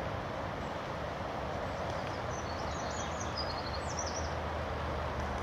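Steady outdoor background noise, with a small songbird singing a high, twittering phrase from about two seconds in, lasting a couple of seconds.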